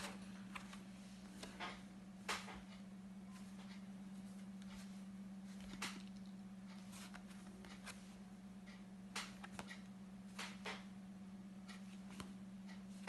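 Quiet room tone: a steady low electrical hum with a few faint scattered clicks and light rustles.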